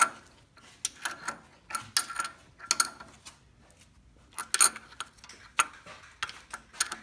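Irregular metallic clicks and clinks, a few ringing briefly, from metal tools and parts being handled during an oil change.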